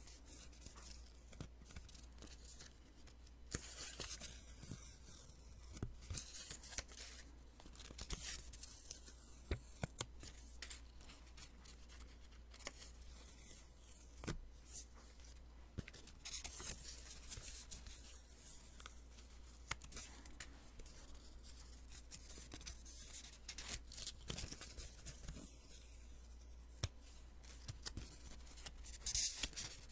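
Post-it sticky notes being peeled off one after another, each peel a short raspy hiss, with small paper ticks and taps between them.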